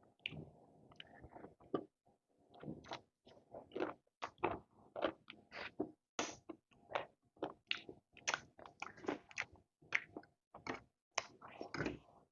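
Close-miked chewing and eating sounds from a meal of noodle soup and chicken feet: a dense, irregular run of short, wet mouth clicks and bites, several a second.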